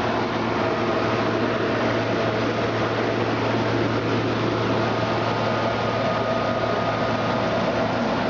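Steady hum and hiss of a running surface grinder's machinery, its hydraulic and chiller units going, with a constant low hum and a few steady higher tones.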